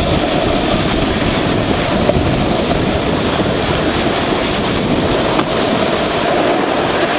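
Steady rushing noise of wind over the microphone and snowboards sliding on packed snow while riding downhill.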